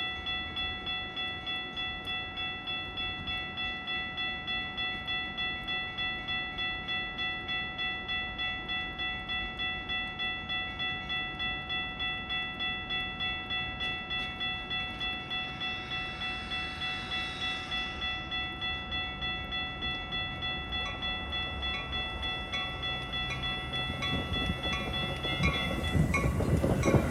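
Railroad grade-crossing warning bell ringing in an even rhythm of a little over two strokes a second as a Metra train approaches the station. Near the end the rumble of the arriving train builds and drowns it out.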